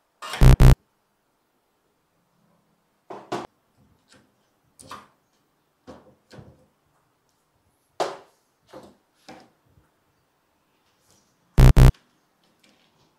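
A loud double-buzz 'wrong' buzzer sound effect about half a second in and again near the end. In between come scattered clicks and scrapes of steel tools, a claw hammer and pliers, against a nail in a wooden block.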